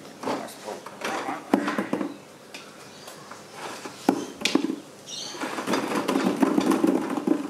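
Wooden fluted dowels pulled out through a wire-mesh cylinder, giving separate clicks and knocks as they scrape the mesh and knock together, then a denser run of clatter near the end as plastic ball-pit balls drop into the plastic bucket below.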